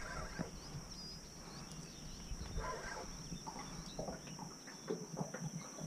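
Marsh ambience: a steady high-pitched insect drone with a few short bird chirps over it, and scattered clicks and rustles from the rod and reel being worked.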